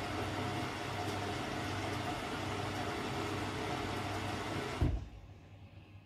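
Hoover DXOA69HC3B washing machine running with a steady rushing noise and low hum that cuts off abruptly with a thump about five seconds in.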